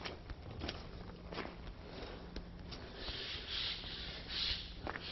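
Boots walking on a wet, muddy footpath: soft irregular squelches and scuffs, with a few brief rustles in the second half.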